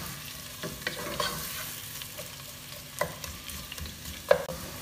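Sliced onions sizzling in hot oil in a non-stick pot as they are stirred with a wooden spatula, the start of sautéing. A few sharp knocks of the spatula against the pot, the loudest near the end.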